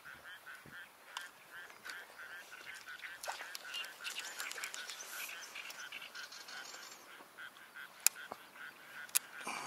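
A steady run of short, evenly repeated animal calls, about three a second, going on without a break. Two sharp clicks stand out near the end.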